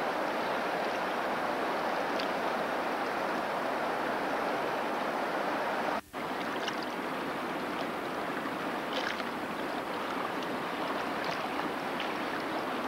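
Fast river water rushing steadily over a stony riffle, an unbroken hiss of flowing water that cuts out for a moment about six seconds in.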